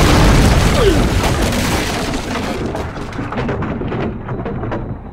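Sound effect of a wooden balcony crashing onto stone: a heavy boom and shattering wood, then scattered pieces clattering down and settling, dying away near the end.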